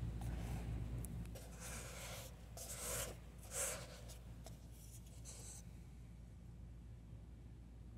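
A few short scraping and rustling sounds of a paper cup with a cardboard sleeve being handled and slid on a desktop, ending a little after halfway. A low steady room hum runs underneath.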